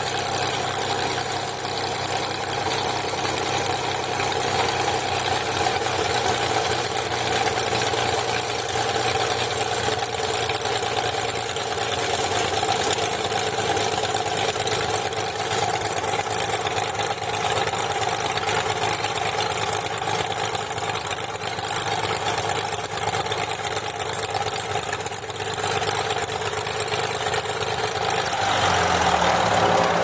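Cessna 210 Centurion's six-cylinder piston engine idling while the plane taxis, heard from inside the cabin as a steady drone. Near the end the engine note changes abruptly.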